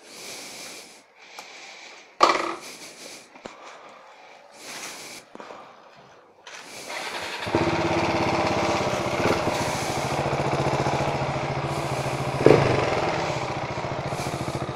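KTM Duke 690 single-cylinder engine, fitted with a Hurric Pro 2 exhaust with dB killers in, starting about halfway through and then running with an even, pulsing beat. Before that there is faint handling noise with one knock, and there is a short sharp knock near the end as the bike moves off.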